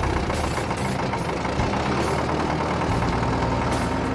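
Engine of a small John Deere crawler dozer running steadily at idle, a continuous low rumble.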